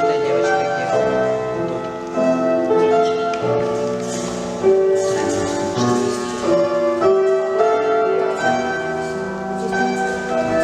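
Solo piano playing a steady, even-metred classical piece as accompaniment for a ballet barre exercise.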